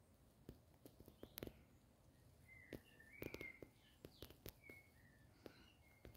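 Faint outdoor birdsong: short whistled notes, busiest in the middle and second half, with scattered sharp steps and scuffs on a gritty path.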